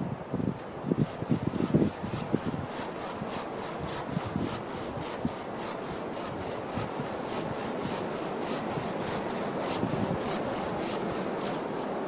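Hand saw cutting through wood in a steady rhythm of about three to four strokes a second, with a few dull knocks in the first couple of seconds.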